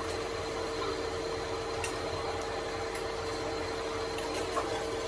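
A workshop machine running steadily with a constant hum, with a few faint clicks about two seconds in.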